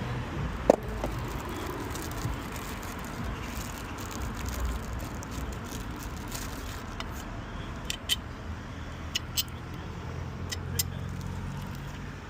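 Sharp clicks and knocks of hand work on a key safe being fitted beside a door: a loud knock just under a second in, and a quick run of clicks about eight to eleven seconds in, over a steady low rumble like distant traffic.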